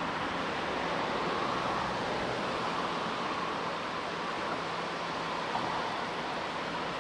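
Steady rushing of river current heard through an underwater camera, with a faint low hum underneath.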